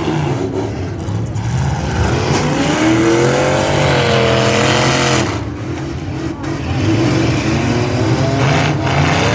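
Demolition derby truck engines revving hard, their pitch repeatedly rising and falling as the trucks accelerate and back off, with a brief lull a little past halfway.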